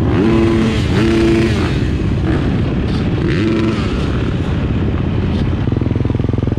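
Yamaha YZ250 single-cylinder two-stroke engine being ridden. Its revs rise and fall twice in the first two seconds and again about three seconds in, then settle to a steady, even beat near the end.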